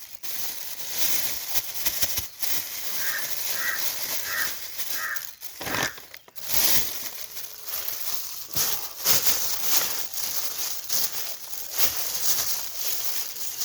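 Plastic packet crinkling and rustling as bait flour is poured out and handled. About three seconds in, a bird calls four times in quick succession.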